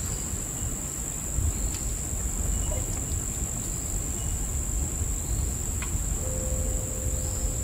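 Crickets chirping in a continuous high trill over a low outdoor rumble, with a faint steady hum coming in about six seconds in.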